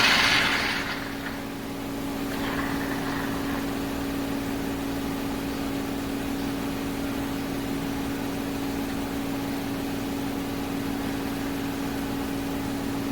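Cuisinart SS-GB1's built-in coffee grinder motor running with a steady hum, loudest in the first second and then settling.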